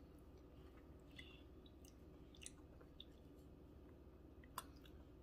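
Very faint stirring: a wooden spoon working a thick, crumbly crushed-Oreo batter in a glass bowl, with soft squishing and a few light clicks, the sharpest about four and a half seconds in.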